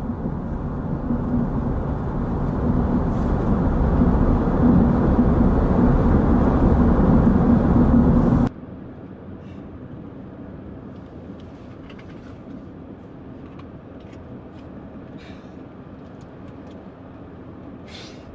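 Car cabin noise on the move: low engine and road rumble that grows louder over the first eight seconds, then drops abruptly to a much quieter steady hum with a few faint clicks.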